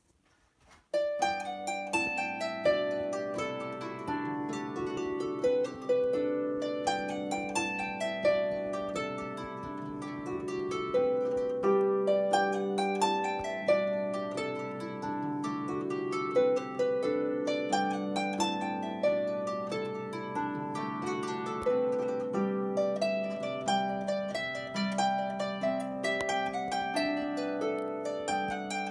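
Turmennan lever harp played solo, starting about a second in: a tune plucked over lower notes, each string ringing on after it is plucked.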